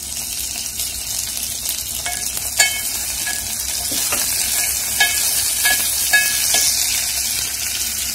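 Sliced onions, fresh curry leaves and dried red chillies sizzling in hot oil in a steel pot, the onions fried light brown. From about two and a half seconds in, a wooden spatula stirs them and knocks against the pot several times, each knock ringing briefly.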